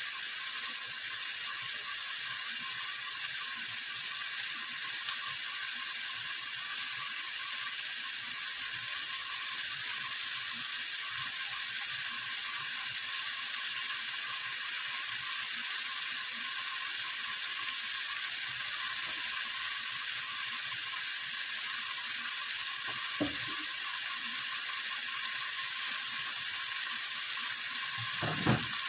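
Chicken pieces sizzling steadily in a pot as they brown, with two soft knocks in the later part.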